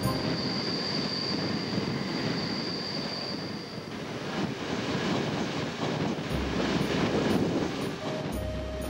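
Passenger train running on its wheels and rails, heard from on board, with a high, steady wheel squeal for about the first four seconds that then stops, leaving the rolling track noise.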